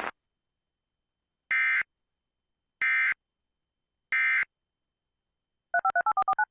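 Emergency Alert System end-of-message signal: three identical short bursts of SAME digital data tones about a second apart, marking the end of the alert. Near the end comes a quick run of about eight short two-tone touch-tone (DTMF) beeps.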